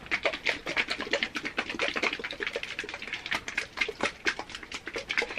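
Plastic applicator bottle of mixed hair dye being shaken hard, a quick run of rattling taps and sloshes several times a second, mixing the colorant and developer together.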